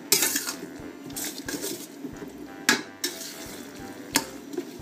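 Metal spatula scraping and clinking against a stainless-steel wok while stirring pork strips in a thickened sauce, with a few sharp clinks: one near the start, one a little over halfway and one near the end.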